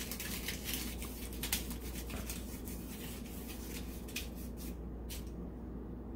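Aluminium foil crinkling and crackling as it is squeezed and shaped by hand, a run of rustles that stops about five seconds in. A steady low hum runs underneath.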